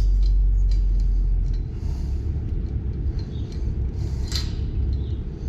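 A loud low rumble that eases after about a second and a half, with a few faint clicks over it.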